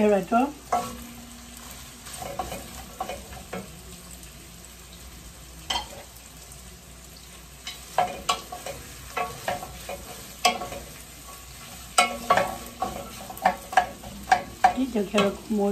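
Carrot sticks sizzling in hot oil in a pan while a wooden spatula stirs them, scraping and clicking against the pan. The spatula clicks come thicker in the second half.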